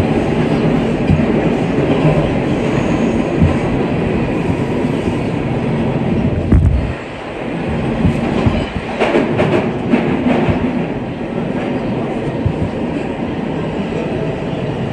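New York City R160A subway train running at speed through a tunnel, its wheels clacking and knocking over the rail joints. The noise drops briefly about seven seconds in, then builds again.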